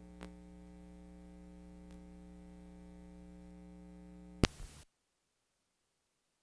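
Steady electrical hum of a videotape playback, a low buzz made of many even tones, with a faint click near the start. About four and a half seconds in there is a sharp pop and half a second of static, then the sound cuts off to dead silence as the recording ends and the player falls to its blue screen.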